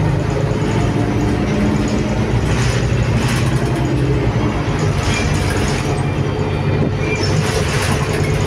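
City bus driving, heard from inside the passenger cabin: a steady engine drone with road noise.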